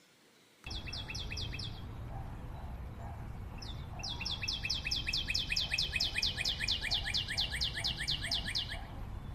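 A bird singing a rapid series of repeated falling notes, about five or six a second: a short burst about a second in, then a long run of several seconds. A steady low background rumble lies underneath.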